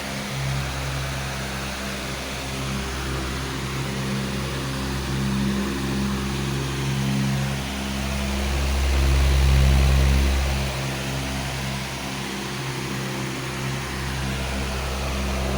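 Powerful electric fan running steadily: a low motor hum with a few steady tones over a rushing hiss of air, the low rumble swelling briefly a little past halfway.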